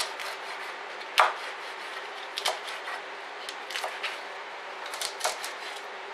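Chef's knife chopping cabbage leaves on a plastic chopping board: irregular sharp knocks of the blade striking the board, the loudest about a second in, over the steady hum of a kitchen extractor fan.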